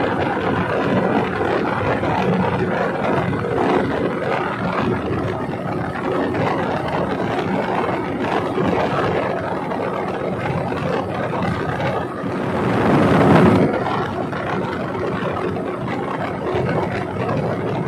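River boat's engine running steadily while the boat travels at speed, under a rush of wind and water. A louder rushing swell comes about twelve seconds in and fades after a second or so.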